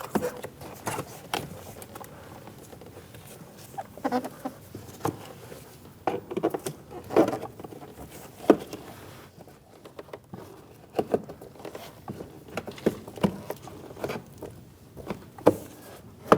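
Plastic retaining clips of a Chevrolet Malibu's front door trim panel popping loose as the panel is pried away from the door with a plastic trim tool: a string of irregular sharp snaps and clicks, with plastic-on-metal handling noise between them.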